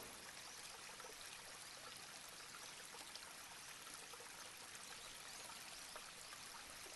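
Near silence: a steady faint hiss of room tone, with a few faint ticks.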